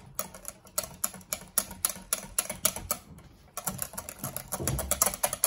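Wire whisk beating soft butter in a glass bowl, its wires clicking against the glass in a quick rhythm of about four strokes a second that speeds up to about twice that three and a half seconds in. A dull knock comes about four and a half seconds in.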